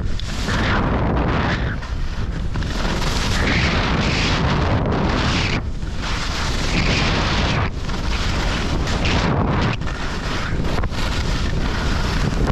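Heavy wind buffeting the microphone at speed: a loud, steady rush with a deep rumble and a few brief dips.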